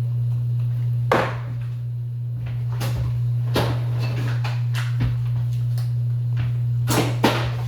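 A steady low hum under a series of short knocks and clatters, as kitchen containers and utensils are handled and set down; two quick knocks come close together near the end.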